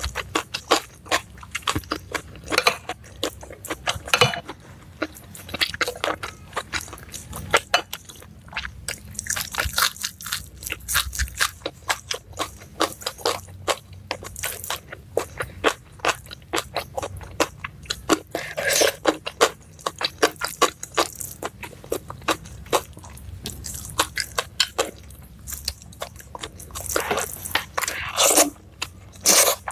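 Close-miked mouth sounds of a person chewing a hand-fed mouthful of rice and Padang side dishes: a dense run of short, sharp, wet clicks and smacks, several a second, with louder bunches of crunching near the end.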